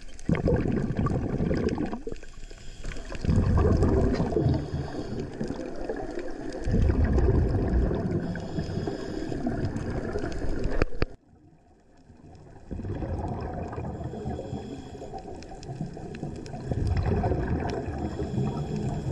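Scuba regulator exhalations heard underwater: long bursts of bubbling a few seconds each, one after another, with a short quiet gap about eleven seconds in.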